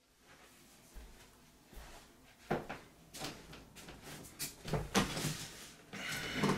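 Scattered knocks and thumps with footsteps as a person walks up and sits down in a chair at a table.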